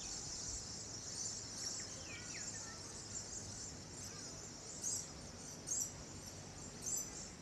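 Steady, fairly faint high-pitched insect chirring, swelling briefly three times in the second half. A few short bird chirps are heard about two seconds in.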